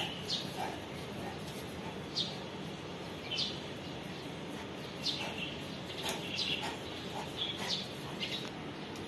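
Small birds chirping: short, high, downward-sliding chirps every second or two, over a steady background hiss.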